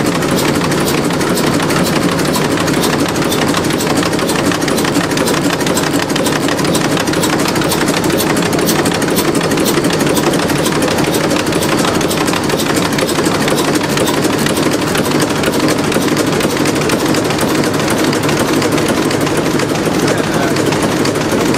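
1935 Werkspoor TM356 six-cylinder, 320-litre engine running steadily, with a fast, even mechanical clatter.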